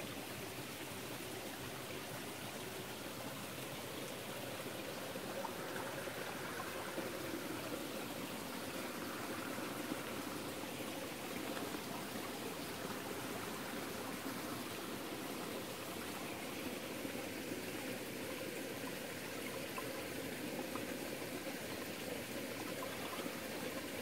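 Shallow mountain stream running over rocks: a steady sound of flowing water.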